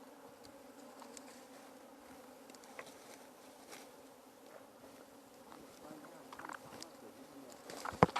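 Honeybees buzzing around a hive in a steady, low hum. A few sharp knocks come just before the end.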